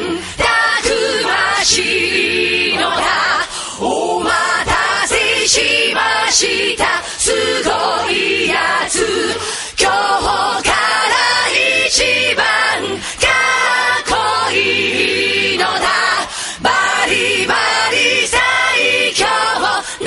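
Background song with choir-like singing voices over percussion.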